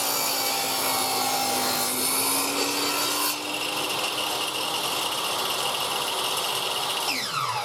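Table saw running and cutting through wood, with a steady motor hum under the dense cutting noise. The highest part of the noise stops about three seconds in, and near the end the saw is switched off and its whine falls as the blade spins down.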